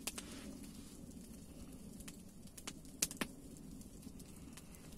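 Campfire burning with a low steady rush and a few sharp crackling pops, two of them close together about three seconds in.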